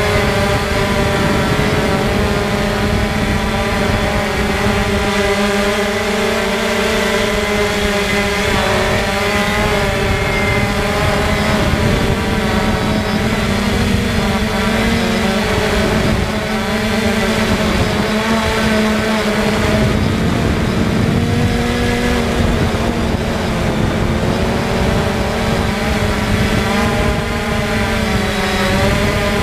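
Multirotor drone's electric motors and propellers whirring, picked up by the drone's own onboard camera: a steady hum of stacked tones whose pitch wavers slightly up and down as the throttle shifts.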